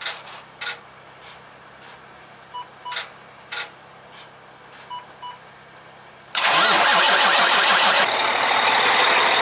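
Semi truck's diesel engine being started: a few light clicks and two pairs of short beeps, then about six seconds in the engine fires and runs loudly.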